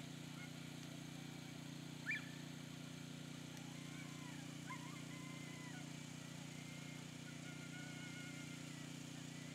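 Steady low engine-like hum from a running motor, with faint chirping calls over it and one brief, louder rising call about two seconds in.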